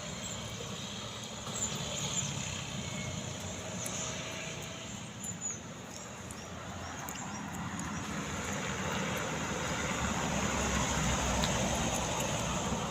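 Heavy container truck's engine running under load on a steep climb: a steady, dense rumble that dips briefly and then grows louder over the second half.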